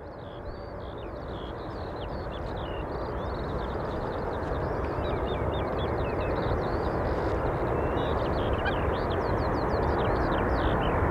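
Boeing 777-200ER jet engines on final approach, a steady distant rushing rumble that grows louder as the airliner comes closer. Many short bird chirps sound over it throughout.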